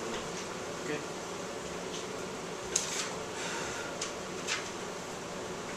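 Steady room hiss, with a few short rustles and crackles of paper being handled, the sharpest about three seconds in.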